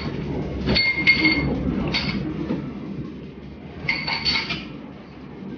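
Chopsticks clinking against a ceramic rice bowl and plate: a few short ringing clinks about a second in, near two seconds and around four seconds, over a low steady rumble.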